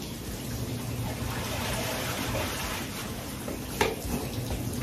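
Water running steadily over a low steady hum, with a single sharp knock about four seconds in.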